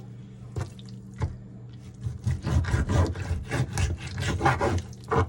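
A knife sawing and scraping through a raw whole chicken in rapid wet strokes. A pause with a couple of single knocks comes first, and the strokes start about two seconds in.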